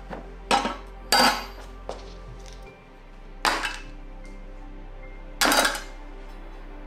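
Four separate sharp metallic clinks with a short ring after each, spaced irregularly, from metal bike parts and tools being handled during a workshop bike restoration, over quiet background music.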